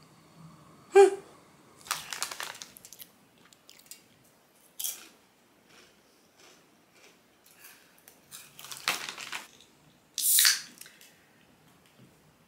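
Crinkling of a plastic Popcorners chip bag and crunchy chewing of the popped-corn chips, in a series of short, separate rustles and crunches.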